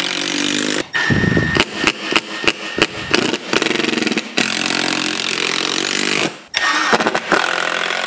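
Power drill driving screws through 1x4 wood strapping into the wall, running in several stretches with short stops and some stop-start bursts between them.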